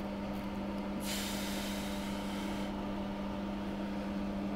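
Steady electrical hum from the repair bench, with a soft hiss of air starting about a second in and lasting under two seconds.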